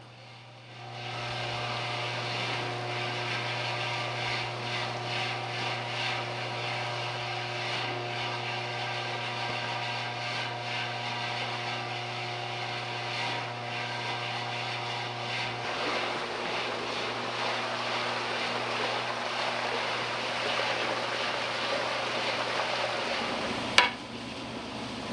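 Sea lettuce processing machine running steadily: a low hum with several steady whining tones above it. About two-thirds of the way through the hum drops away and splashing, hissing water takes over, with one sharp clack near the end.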